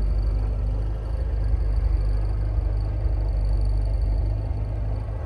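Vehicle engine running, a steady low rumble heard from inside the cabin.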